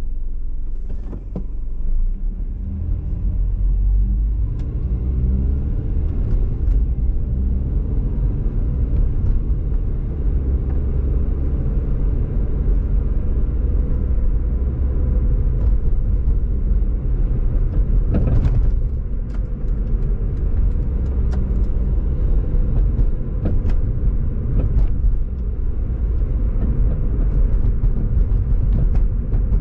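Car driving on city streets: a steady low rumble of engine and tyre noise, with occasional light clicks and knocks, the most distinct about two-thirds of the way through.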